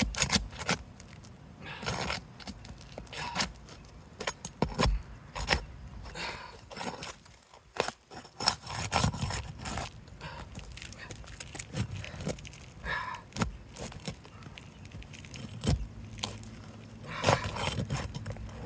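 Irregular scraping, clicking and crackling as a tool is worked under asphalt roof shingles to break their seal and loosen them.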